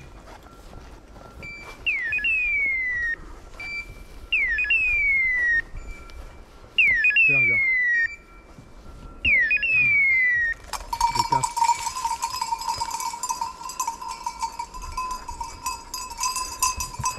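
A hunting dog's beeper collar sounding its point signal: four shrill electronic calls, each sweeping up and then gliding down, about two and a half seconds apart. Then, a little over ten seconds in, a dog bell starts jingling steadily as the setter moves off.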